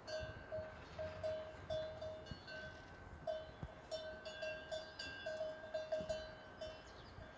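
A cattle bell clanking in short, irregular strikes, about two or three a second, as the cattle walk.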